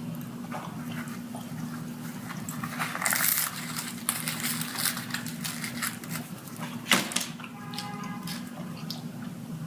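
A steady low hum under scattered clicks and rustling, with one sharp knock about seven seconds in followed by a brief pitched tone.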